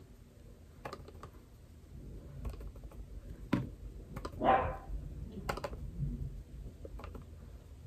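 Faint scattered clicks and taps of a makeup brush and pressed-powder compact as powder is brushed onto the face, with one louder short rush of noise about four and a half seconds in.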